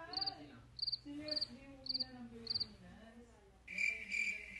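Cricket chirping in short regular chirps, about two a second, which stop a little over halfway through; near the end a different steady, pulsing insect trill sets in. Faint talk sits underneath.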